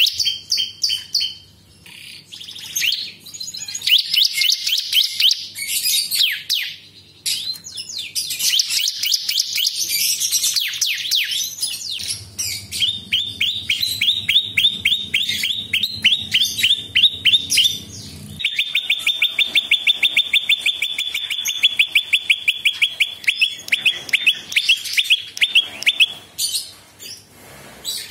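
A caged prinia (prenjak) singing: quick chirping phrases and trills, then long runs of rapid, evenly repeated sharp notes, several a second, in the second half.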